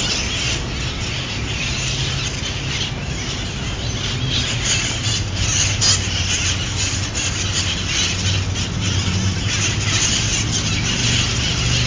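A flock of San Francisco's feral parrots (red-masked conures) screeching and squawking, many short harsh calls overlapping, over a low steady hum.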